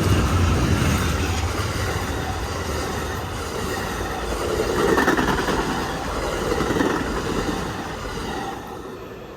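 Amtrak Silver Star passenger train rolling past, its wheels rumbling and clacking over the rail joints, the sound fading steadily as the train moves away and dropping off near the end.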